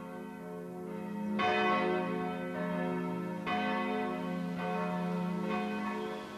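Church bells ringing: several strokes roughly a second apart, each leaving a long ring over a steady low hum.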